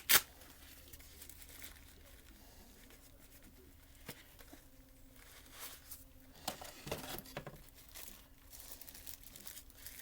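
Unboxing packaging and a small carrying case being handled: a sharp click right at the start, then scattered soft plastic crinkling and rustling, busier for about a second around the middle.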